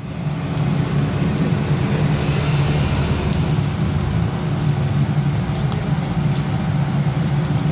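Pork belly and skewered meats sizzling over a charcoal grill, a steady hiss with a constant low hum underneath.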